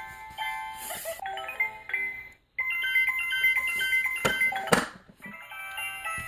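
A bright electronic melody of beeping, stepped notes, breaking off for a moment about two and a half seconds in before a new phrase starts, with a couple of sharp clicks a little later.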